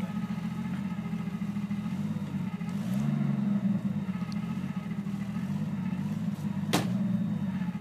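Thiokol Skidozer 252 snowcat engine running steadily, picking up about three seconds in as it works. A single sharp knock sounds near the end.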